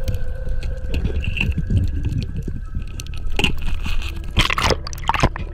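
Underwater scraping and knocking as a diver's gloved hand works against rock in a crevice, over a low underwater rumble. Several loud scrapes come in the last two seconds.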